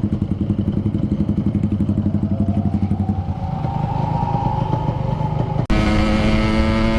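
Yamaha RX-King 135cc two-stroke single idling with a fast, even exhaust beat. About two-thirds of the way in, it cuts abruptly to the engine running at a steady, higher pitch.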